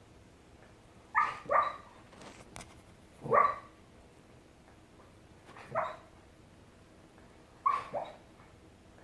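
A dog barking in its sleep while dreaming: about six short, soft barks, two of them in quick pairs, with pauses of one to two seconds between.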